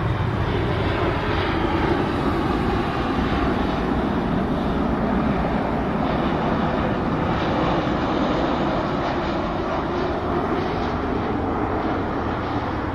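Airliner's engines passing low overhead: a loud, steady engine noise that eases slightly toward the end as the plane moves away.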